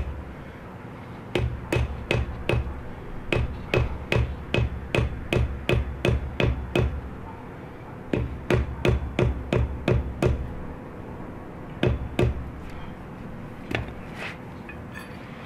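Hammer striking the top of a tetherball ground stake, driving it into the lawn: runs of sharp blows, about two or three a second, with short pauses between the runs and a few lighter taps near the end.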